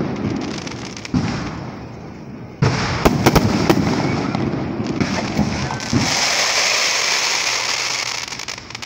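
Aerial fireworks display: shells bursting with sudden booms about a second in and again a second and a half later, with sharp cracks after the second. About six seconds in a dense, high crackling hiss takes over and fades near the end.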